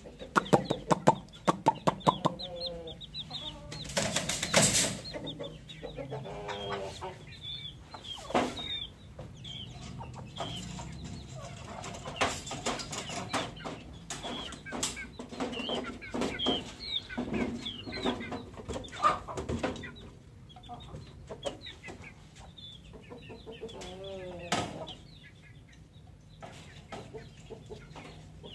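Aseel chickens clucking and calling repeatedly, with a quick run of sharp clicks in the first two seconds and a loud burst of noise about four seconds in.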